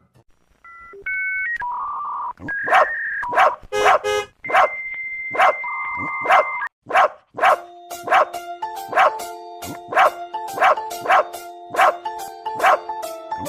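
Dog barking repeatedly, about two barks a second, over a bright electronic music backing that starts with a few short beeping tones.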